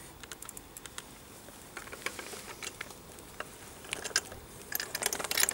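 Light, irregular clicks and rattles from a small child's bicycle being pedalled slowly over tarmac, the clicking thickening about four seconds in.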